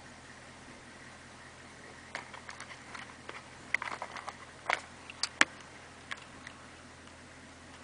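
Steady low drone of a diesel Suburban heard from inside the cab at slow trail speed, with a scattered run of sharp clicks and knocks from about two seconds in until past the middle, the loudest a little past halfway.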